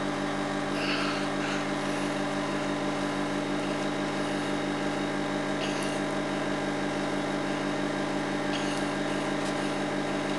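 Steady background hum with several even pitches at once, unchanging in level, with short soft hisses about a second, six and nine seconds in.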